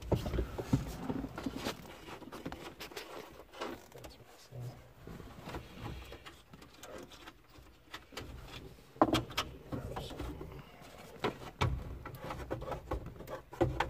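A plastic dash trim panel being handled and fitted into a Freightliner truck's dashboard: irregular light clicks, taps and scrapes of plastic, with a few sharper knocks in the second half.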